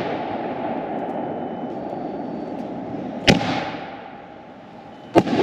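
Aerial firework shells from a Winda Tank Busters cake bursting: two sharp bangs, one a little past three seconds in and one near the end, each fading away, over a steady rushing noise.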